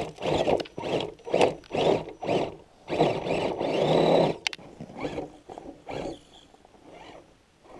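Axial SCX10 scale rock crawler's electric motor and gearbox whirring in repeated short bursts of throttle, about two a second, as the truck works at a tough rocky climb, one burst rising in pitch. After about four and a half seconds the bursts become fainter.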